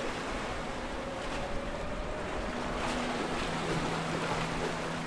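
Steady rush of wind and surf with the drone of a Viking sportfish yacht's diesel engines as it runs in through the inlet. A low hum holds steady over the second half.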